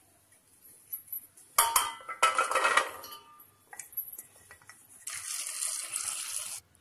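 A stainless steel pot clatters and rings as it is set down and cubed bottle gourd is tipped into it. About five seconds in, a stream of water pours into the pot over the gourd pieces for about a second and a half, then stops.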